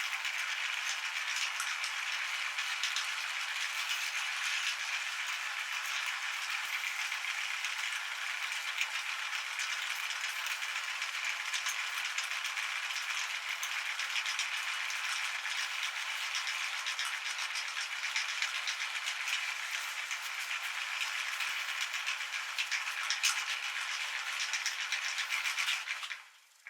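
Meat grinder running with an ice cream sandwich being fed through it: a steady, dense crackling rattle that cuts off near the end.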